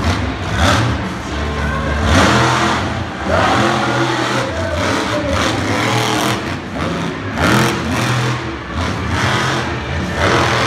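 Monster truck engine revving hard in repeated bursts every second or two over a steady low drone, as the truck drives and jumps on a dirt arena.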